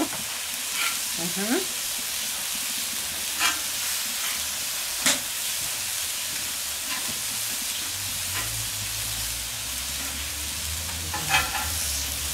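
Peach slices sizzling steadily on a hot steel fire-plate griddle, with a metal spatula scraping and clicking against the plate a few times. The loudest clicks come about five seconds in and near the end.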